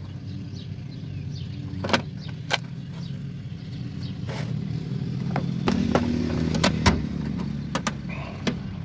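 A lawn mower engine running steadily in the background, louder for a few seconds past the middle. Scattered light clicks and knocks from tools and bits being handled in a plastic case.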